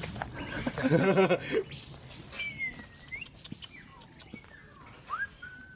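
Wild birds calling in forest: a few clear whistled notes that glide in pitch, one dipping then rising, another sweeping up sharply and holding near the end. A brief human voice sounds about a second in.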